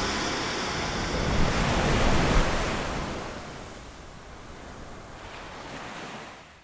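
Sea waves washing in, a steady surf hiss that swells about two seconds in and then fades away.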